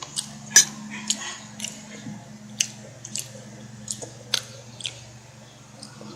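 Close-miked eating sounds: sharp, wet mouth clicks and smacks at uneven intervals, about a dozen in all, over a faint low hum.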